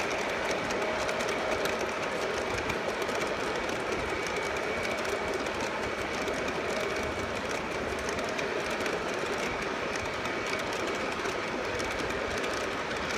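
Model train of loaded coal hopper cars rolling past on its track: a steady, even rumble and clatter of small wheels on the rails.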